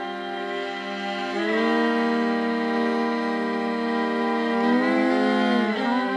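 Slow background music of long held chords, changing about a second and a half in and again near the end.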